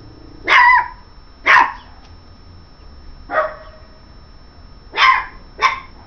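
Yorkshire terrier puppy barking: five short, high-pitched barks, the last two close together.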